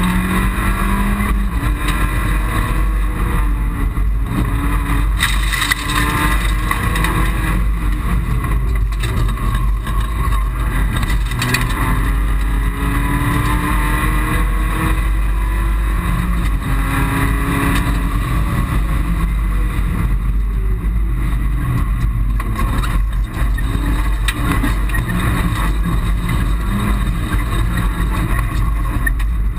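Mitsubishi Colt rally car's engine running hard at speed, heard from inside the cabin along with road and wind noise. Its pitch repeatedly climbs and drops back as it works through the gears.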